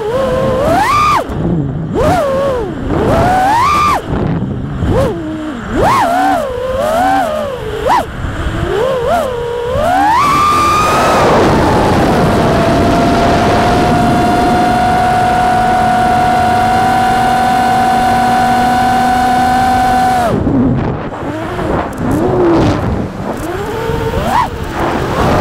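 Brushless motors and propellers of a 5-inch FPV freestyle quadcopter whining, the pitch swooping up and down as the throttle changes. About halfway through the pitch climbs and holds one steady tone for about eight seconds, then drops and goes back to swooping near the end.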